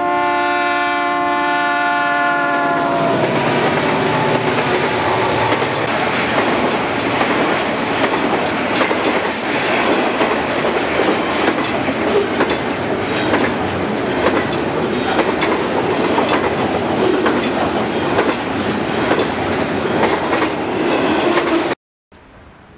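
Diesel freight locomotive's air horn blowing, its pitch dropping about three seconds in as the locomotive passes. Then the locomotives and a double-stack container train roll by, wheels clicking over the rail joints, until the sound cuts off abruptly near the end.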